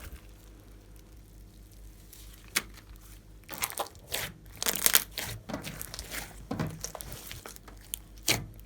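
Hands working slime, with a single click about two and a half seconds in and then a run of irregular squishing and crackling sounds.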